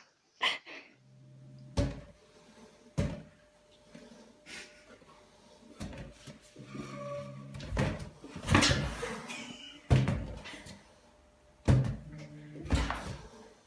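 Irregular hollow thumps and knocks, about a dozen, from rubber balloons bumping against the floor and furniture, with a low humming tone between some of them.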